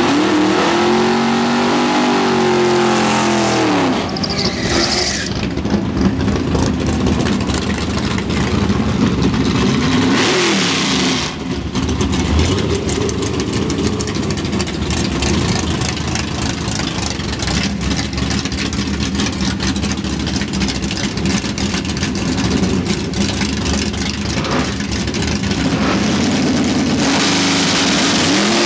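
Cammed 6.2-litre LS V8 (L92 heads and bottom end, custom-spec cam) in a C5 Corvette, revved up and down during a drag-strip burnout. The rear tyres spin, and for several seconds a loud tyre screech rides over the engine. Then the engine runs at low revs with a choppy sound, and it is revved up again near the end while the car moves up to stage.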